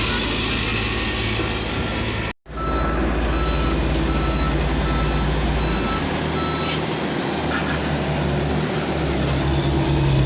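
Heavy road-construction vehicle's engine running steadily, with its reversing alarm beeping about twice a second for several seconds. The sound breaks off briefly about two seconds in.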